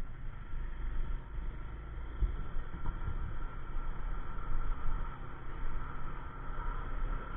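Yamaha NMAX 155 scooter being ridden, its single-cylinder engine running steadily under a low rumble of wind on the microphone, with a faint steady whine that grows a little louder near the end.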